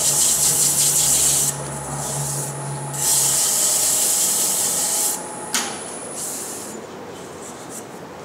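Sandpaper pressed against a turning wooden goblet on a lathe in two passes of about two seconds each, a steady hiss over the low hum of the lathe, followed by a sharp click about five and a half seconds in.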